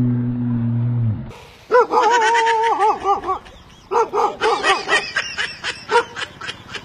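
A dog yelping and barking in quick, wavering cries, in two runs, the second breaking into short sharp barks. Before that, a low steady droning tone cuts off about a second in.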